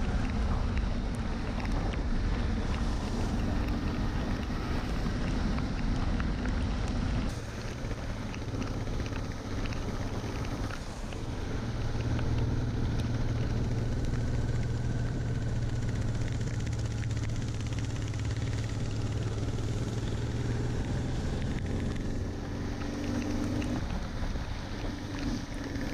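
Motorcycle engine running steadily at road speed, with wind rushing over the microphone. The engine note changes abruptly about seven seconds in.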